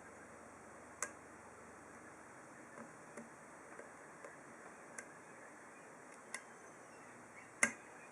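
Scattered small metallic clicks as a deep hook and tension tool single-pin pick the pins of a TESA padlock's half euro cylinder. The clicks are irregular, a few seconds apart, and the sharpest comes near the end.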